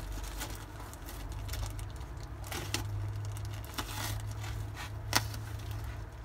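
A knife cutting open plastic packaging: crackling and scraping, with a few sharp clicks and ticks scattered through.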